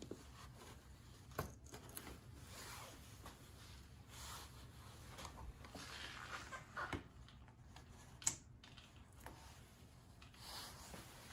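Faint scraping of a pry tool on the plastic housing of a car rear-seat entertainment screen, with scattered small clicks as plastic screw-hole covers pop off. The sharpest clicks come about a second and a half in and about eight seconds in.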